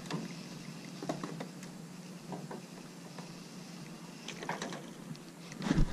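Light, scattered knocks and handling sounds in a small fishing boat over a steady low hum, with a louder thump just before the end.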